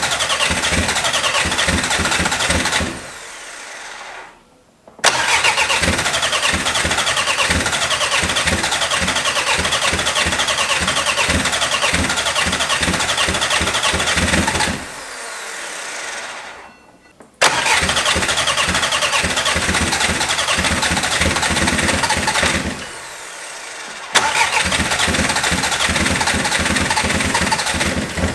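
Freshly rebuilt VW 1.9 TDI PD 8-valve diesel turned over on the starter in long cranking bursts, with a fast even chug of compression strokes. The starter cuts out and is re-engaged with a sharp click three times, with pauses of about two seconds in between.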